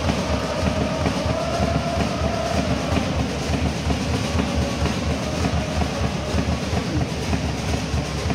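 Football supporters' crowd chanting together in a stadium stand, a wavering held chant over a heavy, pulsing low rumble.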